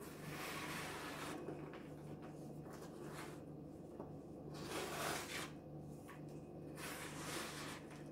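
Dry, lumpy baking soda powder crunching and hissing as a hand scoops and squeezes it. It comes in three bursts of about a second each: near the start, around the middle and near the end, with faint crumbling crackles between.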